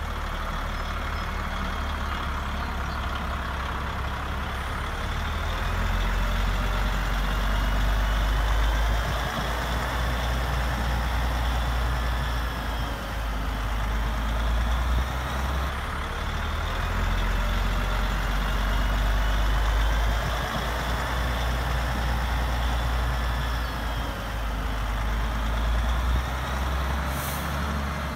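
Simulated diesel truck engine sound for a radio-controlled Bruder Scania R-Series truck, running steadily and rising and falling in level as the truck drives. A faint whine glides up and down above it, and a short hiss comes near the end.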